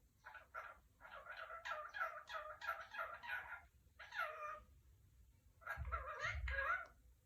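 Pet parrot chattering in a quick run of short, squawky syllables, then a second burst near the end with a low rumble under it.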